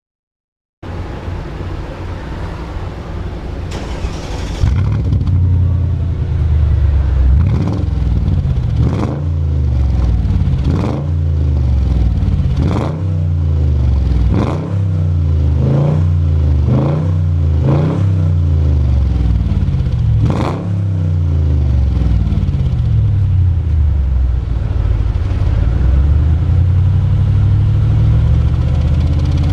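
Mercedes-Benz SL500 (R230) V8 through an aftermarket HE'ART exhaust, idling, then blipped about a dozen times, roughly one rev a second, before settling back to a steady idle.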